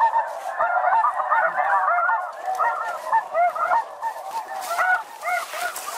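A dense chorus of snow goose calls: many short, overlapping honks, each rising and falling in pitch, with no break.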